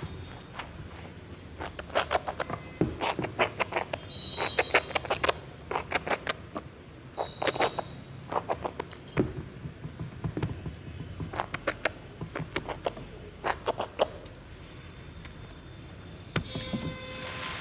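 A soap-lathered sponge scrubber squeezed by hand in a steel bowl of foam, giving wet squelching and crackling bubbles in repeated bursts, one squeeze every second or two.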